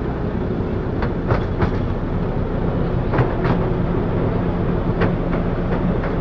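Narrow-gauge railway train running along its track, heard from aboard: a steady low rumble with sharp clicks and knocks from the wheels and carriages every second or so.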